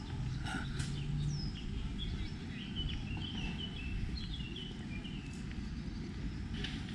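Small birds chirping, a run of short high chirps and a falling whistle through the first half or so, over a steady low outdoor background rumble.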